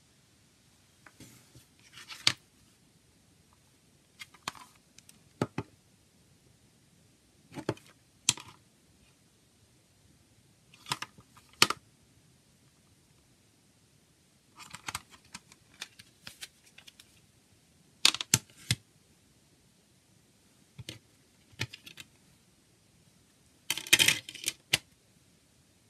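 Hard plastic CD jewel case being handled: short clicks, taps and scrapes in bursts a few seconds apart as it is picked up, turned over, set down and opened.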